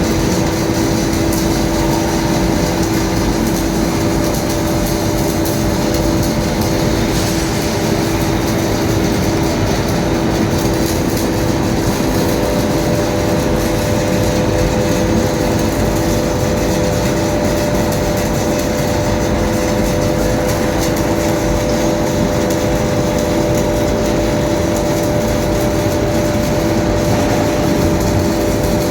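Steady drone of running machinery, holding one constant hum throughout with no let-up.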